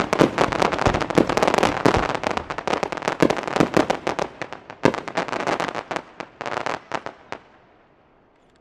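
Fireworks bursting in a dense run of rapid crackling pops that thins out, with a few louder bangs, dying away about seven and a half seconds in.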